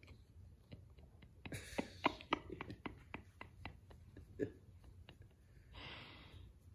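Quiet, breathy laughter in a run of short pulses, about three or four a second, followed near the end by a soft exhale.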